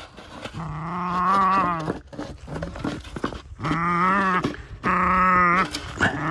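Norwegian Elkhound puppy growling in play while mouthing a plastic jug: three drawn-out growls of about a second each, with a few sharp knocks of the jug between them.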